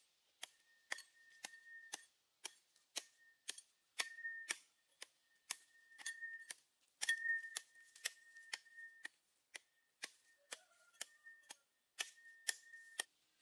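A small metal hand hoe striking and scraping into dry, sandy soil in a steady rhythm, about two strokes a second. A thin, steady high tone sounds between many of the strokes.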